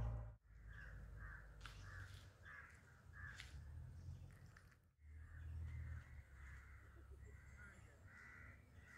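Faint bird calls: a run of short calls repeating about twice a second, broken by a brief gap near the middle, over a low steady rumble.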